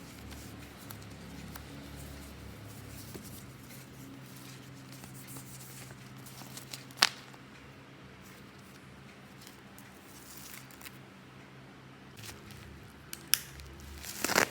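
Quiet handling of packaging and plastic items, with a sharp click about seven seconds in and two more near the end.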